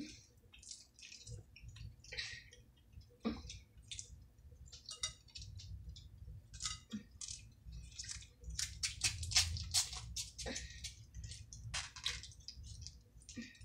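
Small paper condiment packets being torn and squeezed, with wet squishing and squirting as red sauce is pressed out onto fries, in many short irregular crackles and squelches, busiest a little past the middle.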